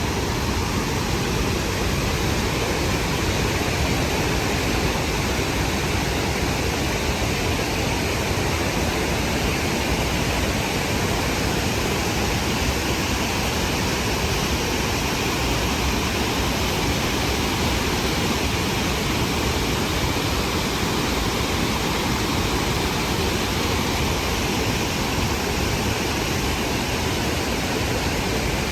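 The Rhine Falls thundering: a loud, steady roar of falling water.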